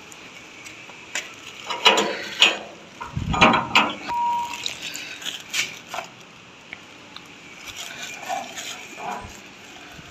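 Steel gate and its latch being handled: irregular metallic clicks, clanks and rattles, busiest a couple of seconds in, with a brief squeak about four seconds in.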